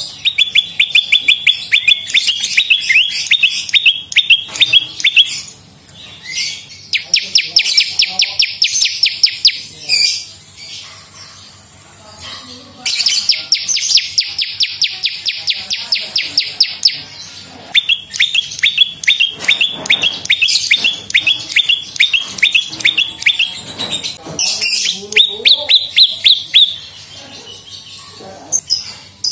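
Prenjak lumut (a prinia) singing loudly in repeated phrases: runs of quick, sharp falling chirps of about five a second, alternating with faster, buzzier rattling trills, with short pauses between phrases.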